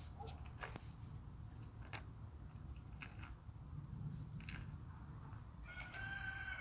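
Leopard tortoise biting and chewing its food: soft, separate crunching bites about once a second. Near the end a rooster starts crowing in the background.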